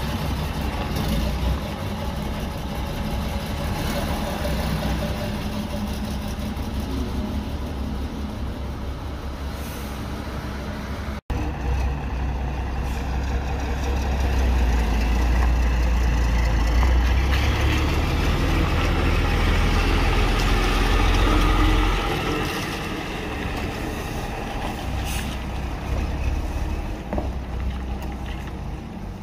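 Diesel engine of an articulated Ikarus bus running as the bus moves out of a garage. The engine gets louder and heavier for several seconds past the middle, then eases back.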